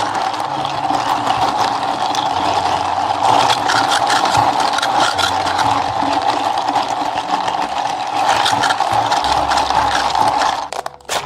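An electric café appliance motor, such as a grinder or blender, running steadily for about eleven seconds with a constant rattle, then cutting off suddenly near the end.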